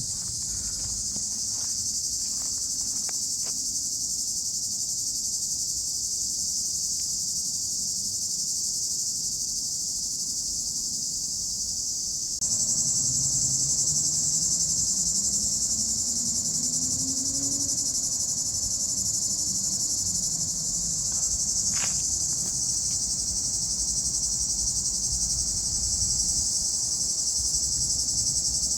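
A dense chorus of cicadas shrilling in the summer heat: a loud, steady, high-pitched buzz with no pauses, which grows louder about twelve seconds in.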